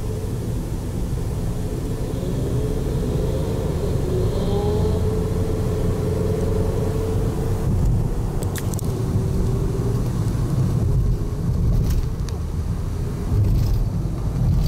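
Road and engine rumble of a car driving at highway speed, heard from inside the cabin, with an engine tone rising and then holding steady as it accelerates in the first half. Several sharp clicks in the second half.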